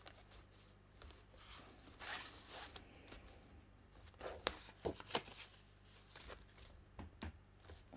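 Cardstock rustling and sliding as it is pressed down and handled on a craft mat, with a few sharp taps and clicks around the middle.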